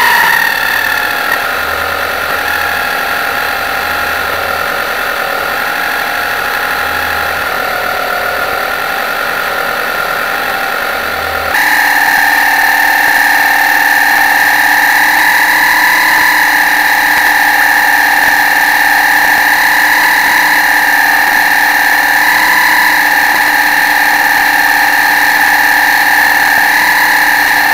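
The motor of the RC model pilot boat Pilot 24, heard from on board, running with a steady whine that wavers in pitch. About eleven seconds in the sound changes abruptly to a louder, slightly higher whine that holds steady.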